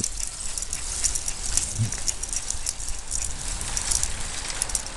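Bicycle rolling over asphalt: a light steady rattle with many scattered sharp clicks, over a low steady rumble.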